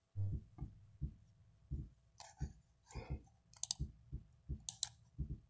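A string of short, soft low thumps, roughly two a second, with a few sharp clicks that come in quick pairs about three and a half and four and three-quarter seconds in.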